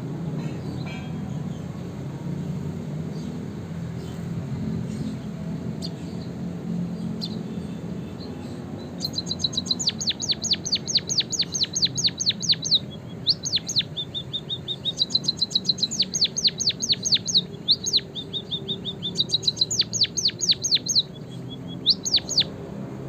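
A low background rumble, then from about nine seconds in a bird sings canary song: fast runs of sharp, high sweeping chirps, several a second, in phrases broken by short runs of steady piping notes.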